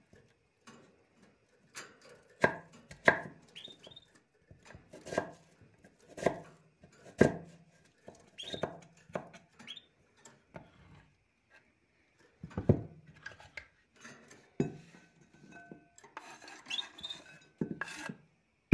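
Kitchen knife chopping on a wooden cutting board, slicing produce into thin strips: sharp, irregular knocks about one or two a second. A few short, high rising chirps from a small caged pet bird come in between.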